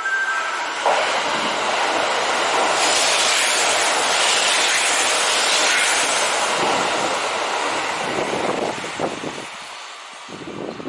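Kintetsu 80000 series "Hinotori" electric limited express running through a station at speed without stopping. A rush of wheel-on-rail and air noise builds over a couple of seconds, is loudest as the cars sweep past, then fades, with a few clacks near the end.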